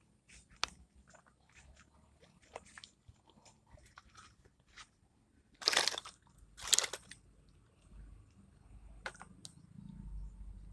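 Close-up handling noises: scattered small clicks and crunchy rustling, with two louder rustles a little past the middle.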